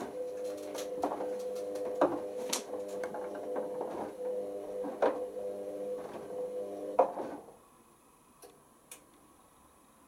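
Hoover Optima OPH714D front-loading washing machine on its wash phase: the drum motor hums steadily as the drum tumbles the load, with sharp knocks about once a second as the wet clothes drop. About three-quarters of the way through the motor stops and the drum comes to rest, leaving only a couple of faint clicks.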